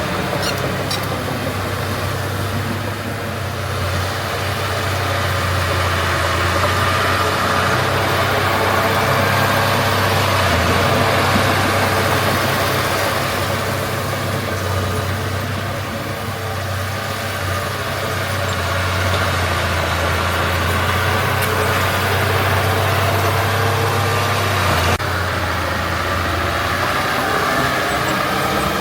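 Heavy diesel engine of earthmoving machinery running steadily, its loudness swelling and easing, with an abrupt change in the sound near the end.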